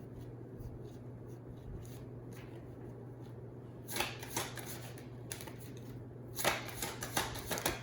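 A deck of tarot cards being shuffled in two short rapid runs of flicking, about four and six and a half seconds in, over a low steady hum.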